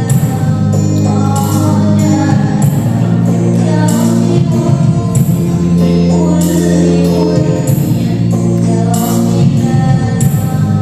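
Sholawat qasidah music: singing over a held keyboard accompaniment, with hand frame drums and jingles keeping a steady beat.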